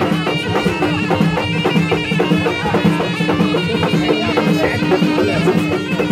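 Moroccan Allaoui folk music: a shrill, reedy wind instrument plays a melody over a steady held drone, with a quick, even drumbeat.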